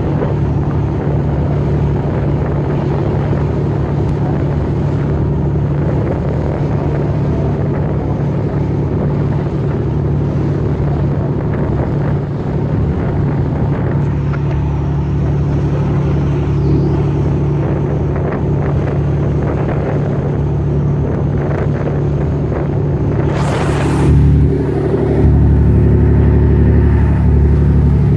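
Boat engine running steadily, a loud low drone under rushing water and wind on the microphone. A short sharp burst of noise comes about 23 seconds in, and the low drone grows louder after it.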